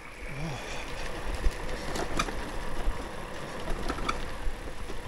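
Bicycle rolling along a bumpy paved lane: a steady rumble of tyres and wind on the microphone, with a few light clicks and rattles from the bike.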